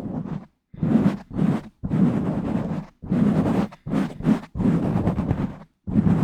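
Hands rubbing and scratching directly on an uncovered microphone, in a run of separate rough strokes, some short and some about a second long, with brief silences between. Each stroke is heavy in low, boomy rustle.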